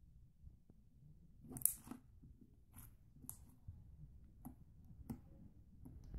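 Homemade slime being squished and poked by hand, giving faint, irregular sticky clicks and pops, the loudest about one and a half seconds in.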